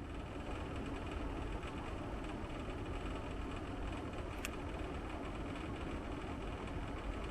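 Split air conditioner indoor unit running with a steady low hum and a buzzing drone from its casing vibrating, a noise the owner traces to a mounting base not firmly fixed to the wall. A single short click a little past halfway.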